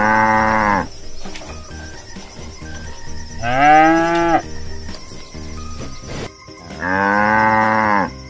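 Cattle mooing: three long moos a few seconds apart, each about a second long. The middle one is the loudest and rises in pitch as it starts.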